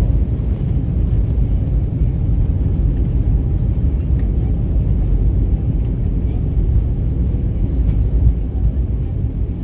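Steady low rumble inside the passenger cabin of an Airbus A320 airliner, holding an even level throughout.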